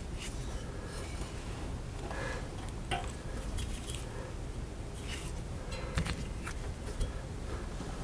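Faint rustling and a few light clicks from wiring and plastic connectors being handled by hand, over steady background noise.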